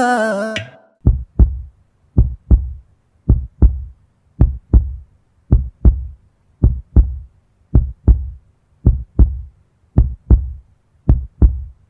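Music with singing cuts off within the first second. It gives way to a heartbeat-like beat: pairs of deep thuds, a double thump about once a second, ten pairs in all.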